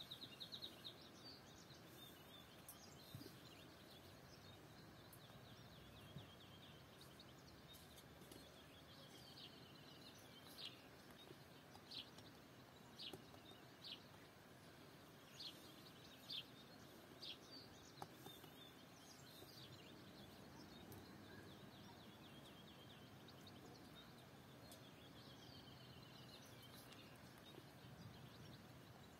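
Faint birdsong over quiet rural ambience: short high chirps about once a second through the middle, and soft trills near the start and toward the end.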